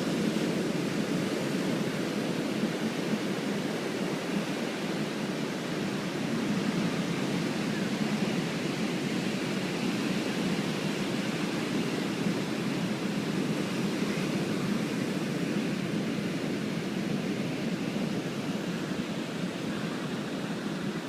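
Typhoon wind and rain making a steady, unbroken rushing noise.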